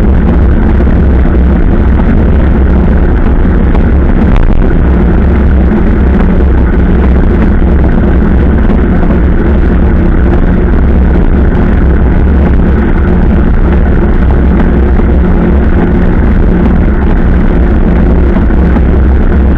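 Loud, steady wind buffeting on the microphone of a camera riding along on a moving bicycle, a deep rumbling noise with no breaks.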